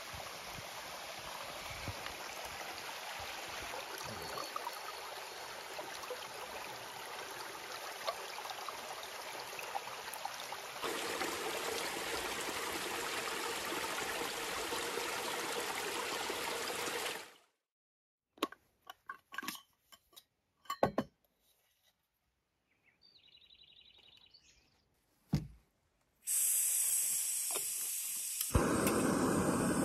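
A small mountain stream running over rocks, steady and fairly loud, for the first half. Then a near-quiet stretch with a few scattered clicks and knocks, and near the end a backpacking gas canister stove: a thin hiss of gas that becomes the fuller, louder rush of the lit burner.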